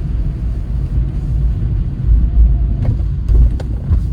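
Inside a moving car: a steady low rumble of engine and road noise, with a few sharp ticks during the last second or so.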